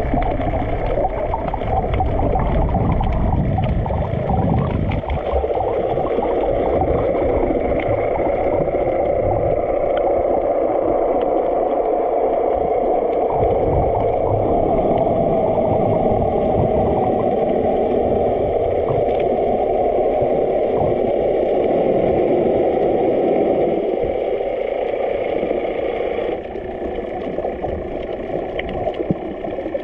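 Steady, muffled droning noise heard underwater, dropping in level near the end.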